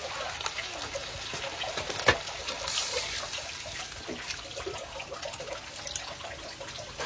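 Spring water poured from a plastic dipper into a wok of cooking moss, trickling and splashing.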